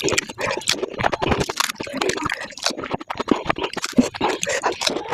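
Sped-up close-miked eating of pani puri: a rapid, dense run of crunching, chewing and slurping mouth sounds, chattering and squealing from the fivefold playback speed.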